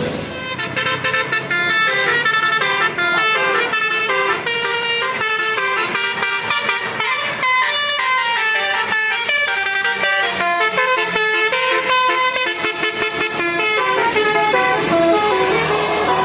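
Indonesian bus 'telolet' horn, a set of multi-tone air horns, playing a fast melody of short notes that step up and down several times a second.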